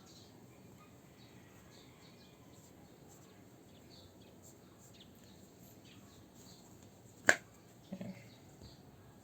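Quiet handling of a tablet in its new case, then a single sharp click about seven seconds in and a softer knock a moment later.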